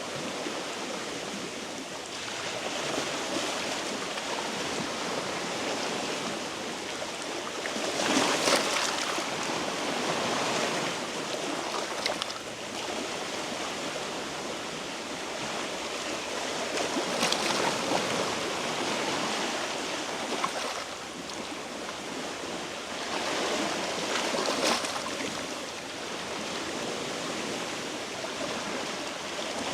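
Sea waves washing and splashing among shoreline rocks: a steady wash with several louder surges a few seconds apart, about 8, 12, 17 and 24 seconds in.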